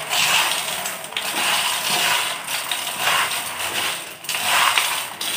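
Hands scooping and rubbing dry, crisp fried South Indian mixture (sev, boondi, peanuts, roasted gram) in a stainless steel bowl, the pieces rustling and rattling against each other and the steel in swells about once a second. The mixture is being worked by hand to coat it with the chilli powder and salt.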